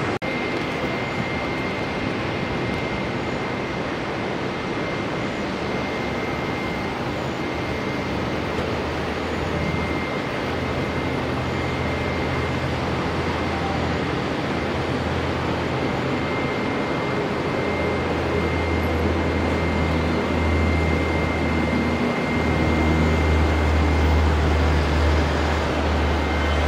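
Bombardier Dash 8 Q300's twin turboprop engines at takeoff power as the aircraft runs down the runway, a steady engine-and-propeller noise with a low throb that builds and grows louder through the second half.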